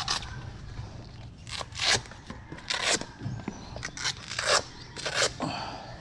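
Cycling shoes being taken off: about six short, scratchy rips as the shoe straps are pulled open.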